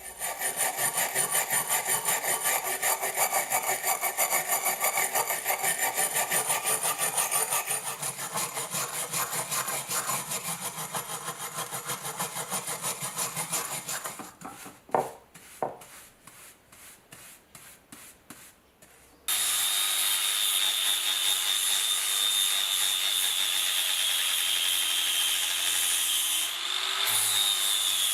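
Rapid, even back-and-forth rasping strokes of hand abrasive work on a knife: filing or scrubbing. They slow to a few scattered strokes about halfway through. About two-thirds in, an electric power tool starts and runs steadily with a high whine.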